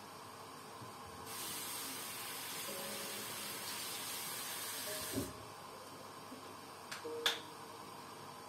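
A steady hiss of mist from a facial treatment machine, lasting about four seconds and cutting off sharply. A couple of light clicks follow.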